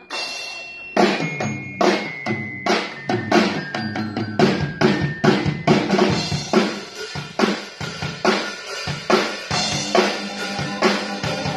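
Drum kit played on stage: snare and bass drum keep a steady beat of about three hits a second, with cymbal wash between hits. A few held higher notes from another instrument sound over the drums in the first half.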